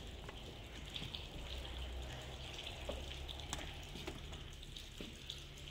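Steady faint background hiss with a low hum, broken by a few soft clicks and taps as knives are handled and slid into leather sheaths.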